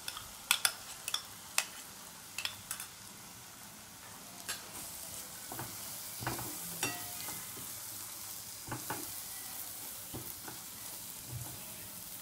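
Crushed green pigeon peas scraped from a bowl into a pan of frying masala gravy, with a quick run of sharp clicks and taps at first, then stirred in with a silicone spatula while the pan sizzles on a low flame, the sizzle growing stronger about halfway through.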